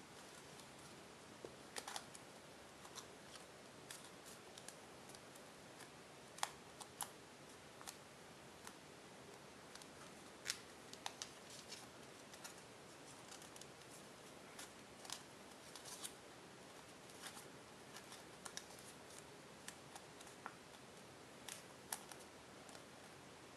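Tissue-foil origami paper crackling and crinkling as it is folded and creased by hand: scattered, irregular sharp crackles over a near-silent background.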